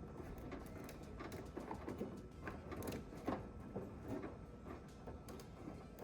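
Scattered light clicks, knocks and rustling from hands working on car wiring, over a steady low background hum.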